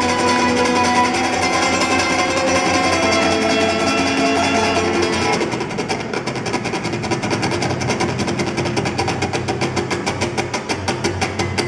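Live concert music with no singing, led by guitar. Held chords give way about halfway through to a fast, even strummed rhythm.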